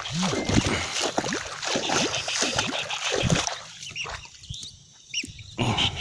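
Splashing and sloshing in shallow swamp water, with short low animal calls over it; it grows quieter about three and a half seconds in, leaving a few brief high chirps.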